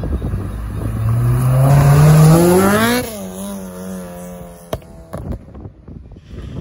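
Honda Civic hatchback accelerating hard away, its four-cylinder engine revving steadily higher for about three seconds, then dropping sharply in pitch and running on more quietly as the car pulls away.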